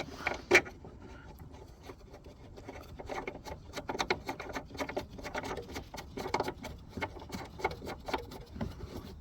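Irregular clicks and rubbing of plastic and metal as a car's rear lamp cluster is worked back into place and its hidden screw is driven in, with a sharper click about half a second in.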